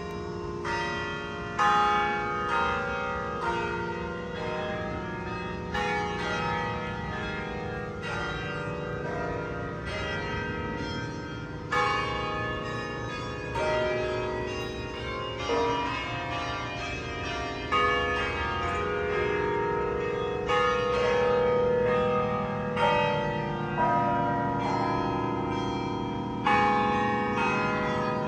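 Tower bells of a carillon playing a melody, one struck note after another every half second to a second, each ringing on under the next.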